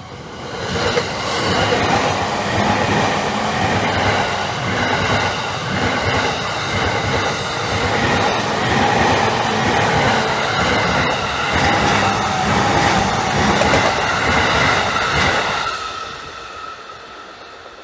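A Takasaki Line electric train passing through a level crossing, its wheels and carriages clattering. It swells in about a second in, stays loud for about fifteen seconds, then fades as the train moves away.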